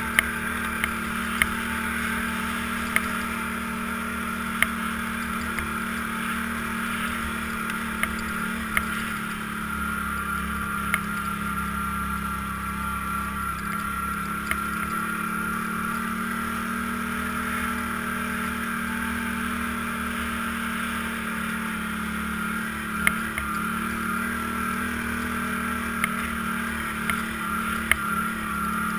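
ATV engine running at a steady cruising speed while riding over a snowy trail, with sharp clicks or knocks every few seconds.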